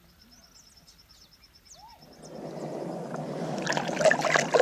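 Water sloshing and splashing close by, starting about halfway through and growing louder. Before it there is near quiet with a faint, fast, even ticking.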